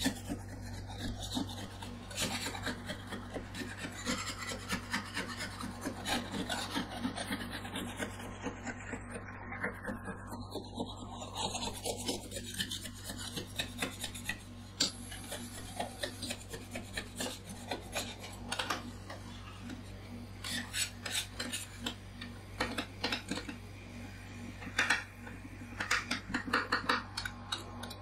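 Metal spatula scrapers scraping and chopping coffee mixture as it freezes into flakes on a stainless-steel ice-cream-roll cold plate: a continuous run of rasping scrapes and sharp taps of steel on steel, over a low steady hum.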